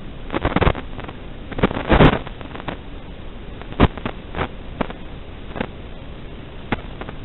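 Static hiss from an analog FPV video link's audio channel, with bursts of crackling in the first two seconds as the signal breaks up, then single sharp pops about once a second.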